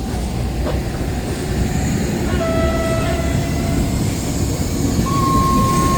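Passing train running with a low, steady rumble. A locomotive whistle sounds about two and a half seconds in for just over a second, then a second, higher whistle starts near the end and holds.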